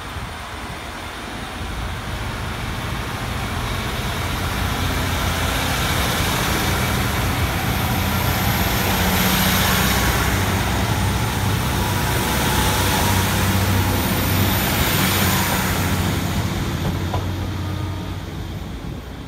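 GWR Class 150 Sprinter diesel multiple units (150248 leading, coupled to 150127) passing: underfloor diesel engines droning under the rumble of wheels on the rails. The sound swells to its loudest about halfway through as the train goes by, then fades away near the end.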